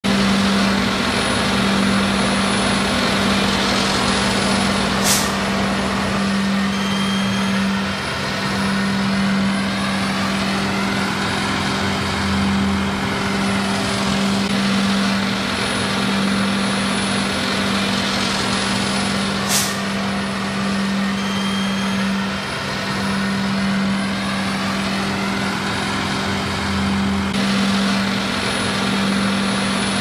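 Concrete boom pump truck's engine and hydraulic pumps running at a loud, steady drone with a strong low hum that swells and eases, and two sharp clicks about fourteen seconds apart.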